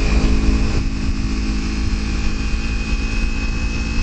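Kawasaki Ninja 300's parallel-twin engine running at a steady cruising speed on the move, under heavy wind rumble on the microphone.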